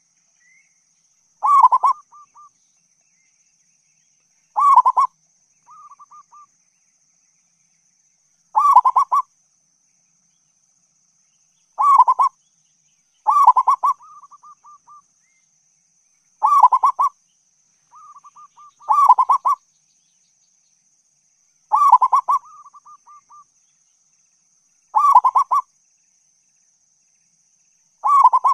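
Zebra dove (perkutut) cooing: a loud cooing phrase about every three seconds, several of them followed by a softer run of short coos.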